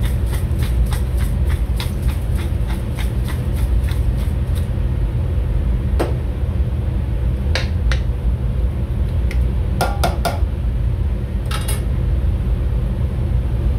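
Hand pepper mill being twisted, its grinder clicking about three or four times a second and stopping about four and a half seconds in. A few scattered metal clinks follow, over a steady low machinery hum.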